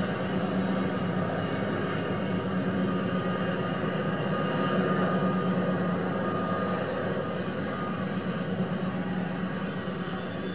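Steady rumble of long BNSF double-stack freight trains rolling past, with a thin high-pitched wheel squeal that grows stronger near the end.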